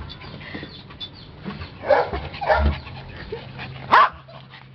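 Small dog barking in a few short yips, with the loudest, sharpest bark near the end.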